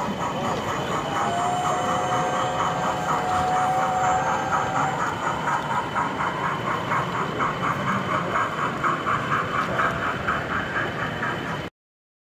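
Model steam locomotive and train running on an exhibition layout, with a regular beat about four times a second over the steady background of the exhibition hall. The sound cuts off suddenly just before the end.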